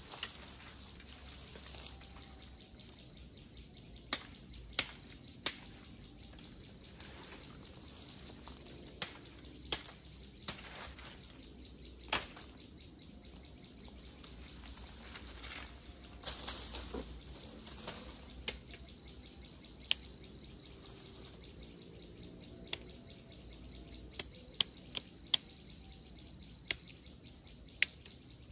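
Insects chirring steadily in a high, evenly pulsing band, with scattered sharp cracks and snaps from a person moving and working through dense undergrowth, some coming in quick runs of three.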